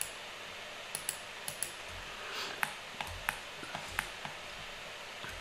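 Scattered sharp clicks from a computer mouse and keyboard, some in quick pairs, as faces are selected one at a time, over a steady low hiss.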